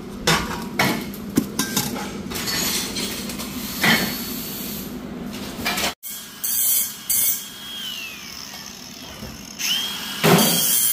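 Steel exhaust pipes knocking and clanking as the muffler assembly is lifted and moved. Then an angle grinder grinds a steel exhaust pipe in short bursts, its whine falling each time the trigger is let go.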